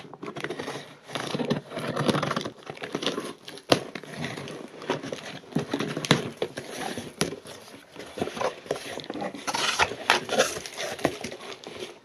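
Packing tape on a cardboard box being slit and torn open with a small flathead screwdriver: steady scraping and crinkling of tape and cardboard, broken by frequent sharp clicks and knocks.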